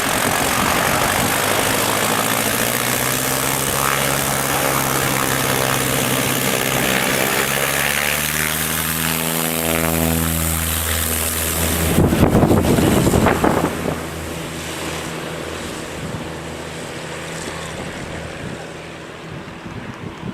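An aircraft passing low and close: its engine noise builds with sweeping tones as it approaches, peaks in a loud rush about twelve seconds in, then fades away.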